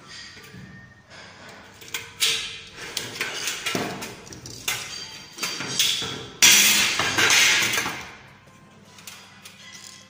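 Thin metal drywall stud being cut by hand, a series of irregular scraping metal cuts, the loudest about six seconds in.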